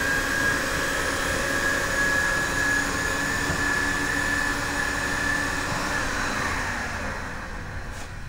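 Vacuum cleaner motor running with a steady high whine over a lower hum. About six seconds in it is switched off and winds down, the whine falling in pitch as it fades.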